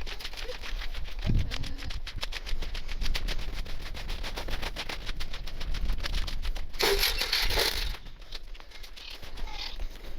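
Sped-up audio of footsteps walking outdoors, turned into a rapid run of clicks, with a louder hiss lasting about a second near seven seconds in.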